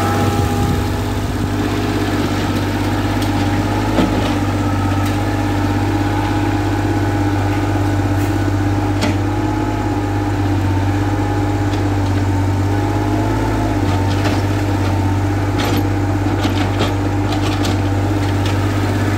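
Caterpillar mini excavator's diesel engine running steadily at an even pitch. A few sharp clicks and knocks come from the digging, one about four seconds in and several near the end.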